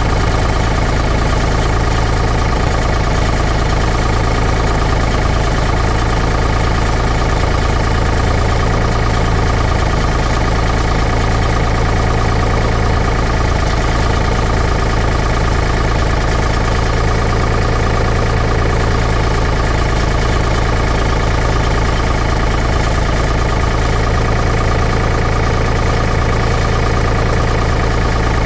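Large diesel pump engine running steadily at a constant speed, a loud continuous low drone with a fine even rattle.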